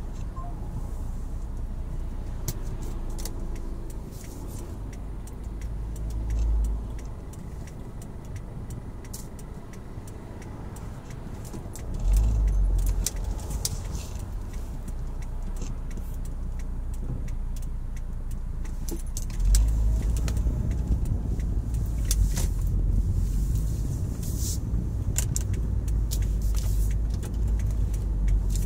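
Vehicle driving, heard from on board: a steady low engine and road rumble that swells several times, with scattered light rattles and clicks.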